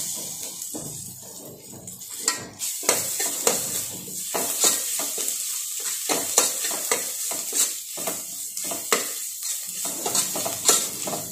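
Onions with crushed ginger and garlic sizzling in oil in a pressure cooker. A metal spoon stirs and scrapes them, knocking against the pot in irregular clicks over the steady hiss.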